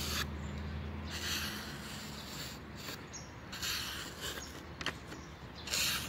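Plain-edge main blade of a Splitman GHK6 multitool cutting test material in a few drawn strokes, each a hissing scrape of a second or so, with a couple of sharp clicks near the end.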